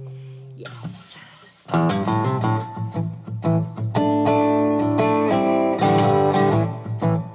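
Acoustic guitar: a ringing note fades out, a brief hiss sounds about a second in, then a new song intro starts about a second and a half in, chords picked and strummed in a steady rhythm.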